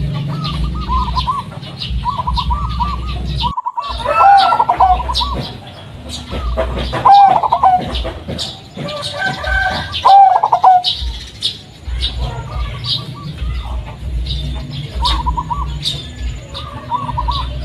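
Zebra dove (perkutut) of the local Blorok Madu type cooing, repeating short warbling song phrases, with louder calls about 4, 7 and 10 seconds in. Short high chirps and a steady low hum run underneath.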